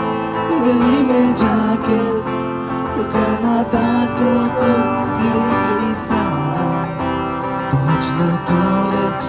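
Background music: a song led by strummed acoustic guitar, with a sung melody over it.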